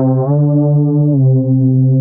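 A low, sustained electronic horn-like tone, held with small steps in pitch: up a little about a quarter second in and back down about a second in.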